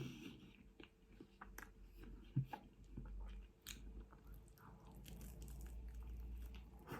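A person chewing and biting food close to the microphone, with faint crunching and small wet mouth clicks, and one soft knock about two and a half seconds in.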